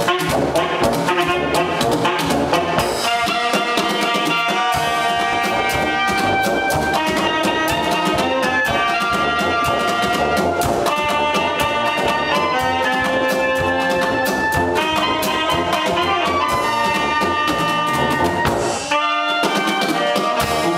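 Live small band playing an instrumental passage: a drum kit keeping a beat under a tuba, another brass horn, and saxophone and clarinet. The playing breaks off briefly about nineteen seconds in, then picks up again.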